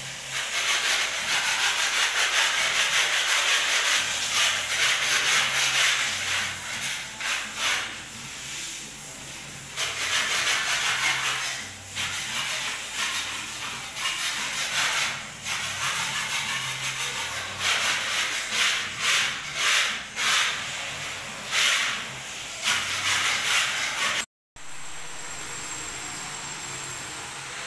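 Broom bristles sweeping a bare concrete floor in repeated scraping strokes, uneven at first and more separate later. The sound cuts out briefly near the end and gives way to a steadier, fainter hiss.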